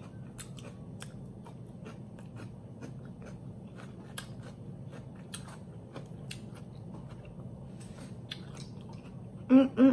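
Close-up chewing of food with a closed mouth: irregular small wet clicks and crunches over a steady low hum. Two short loud vocal sounds cut in near the end.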